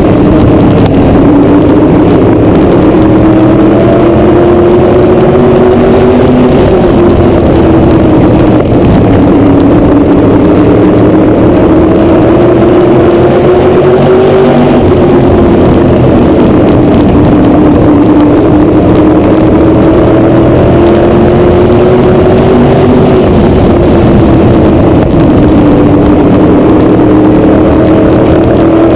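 Onboard sound of a PASS Modified race car's V8 engine at racing speed, very loud. The engine note drops as the driver lifts for each turn and climbs back up along each straight, about every eight seconds.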